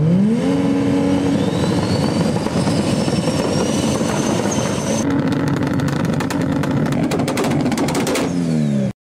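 Car engine revved up quickly and held at high revs; after about five seconds it crackles with rapid pops as it bounces off a rev limiter, then the revs drop and the sound cuts off suddenly.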